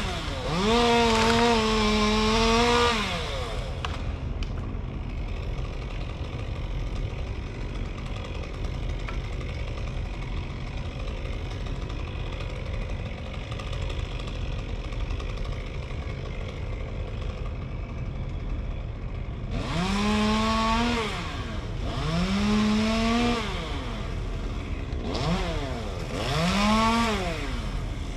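Chainsaw revving in bursts while cutting a big fir. One high-revving burst of about three seconds at the start, then a lower steady running for a long stretch, then three more bursts near the end, each dropping in pitch as the throttle comes off.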